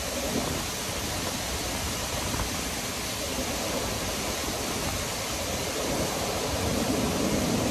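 Steady rushing noise of wind and moving river water below a dam, with an unsteady low rumble.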